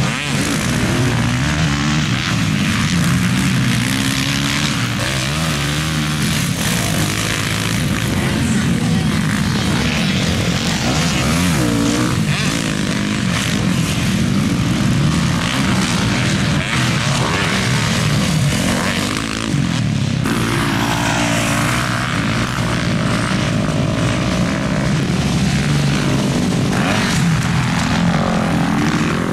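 Motocross bike engines revving on the track, among them a 2022 Kawasaki KX450 four-stroke single, their pitch rising and falling over and over with the throttle.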